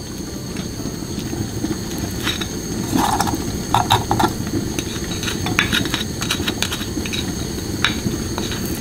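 Wooden spoon scraping honey and sugar off a ceramic saucer into a stainless steel saucepan, with scattered light taps and scrapes, over a steady low rumble.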